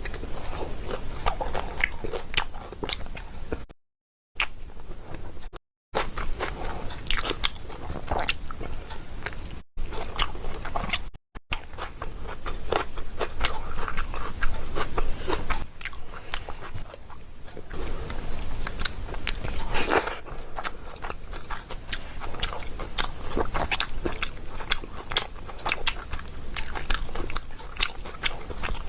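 Close-up chewing and biting of pomfret fish with rice, full of irregular small crunches. The sound cuts out completely for a moment a few times in the first twelve seconds.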